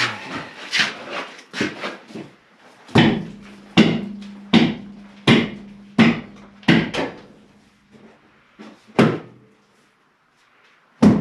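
Hammer blows on the metal of a skid steer wheel being knocked loose, about one every three-quarters of a second, each with a short metallic ring. After a pause of over a second, one more blow lands, then another near the end.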